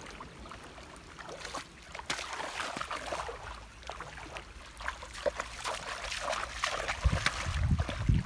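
Water splashing and trickling in irregular bursts, with a few low thumps near the end.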